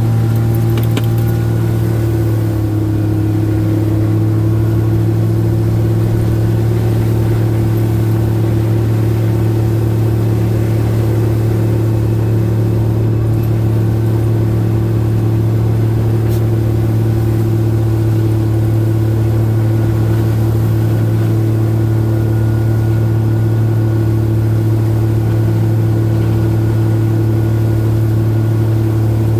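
Car driving at a steady pace: a constant low engine and road drone with a steady hum that does not rise or fall.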